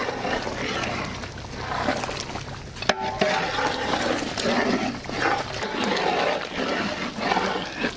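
Chicken gravy bubbling and sloshing in a large cooking pot as it is stirred with a long ladle, with one sharp knock about three seconds in. A low hum underneath stops a little past halfway.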